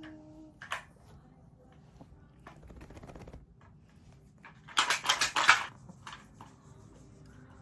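Clicks and clatters of small hard objects being handled, with a burst of rapid taps about five seconds in.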